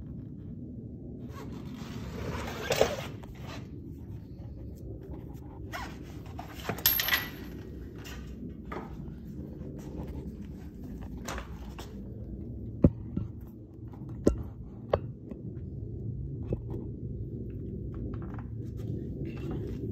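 Handling noise with a few sharp knocks over a low steady hum: the phone being moved and tools being handled, with no impact wrench running.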